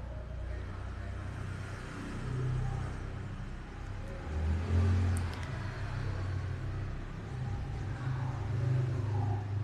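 Low engine rumble of a passing motor vehicle, its pitch shifting, loudest about halfway through.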